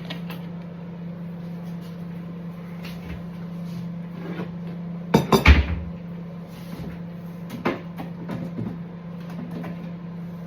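A kitchen cupboard door shutting with a clatter and a low thud about halfway through, among small clicks and knocks of things being handled, over a steady low hum.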